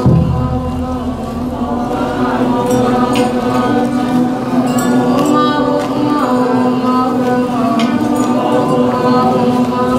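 Many voices chanting a mantra together, held on a steady low drone, with light clicks now and then.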